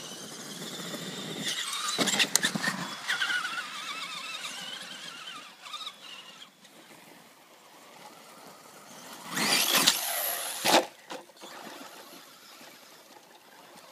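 Electric RC truck's motor whining, its pitch rising as it speeds up, with sharp knocks about two seconds in as it bounces over the track. Near the ten-second mark comes a loud rushing noise, twice.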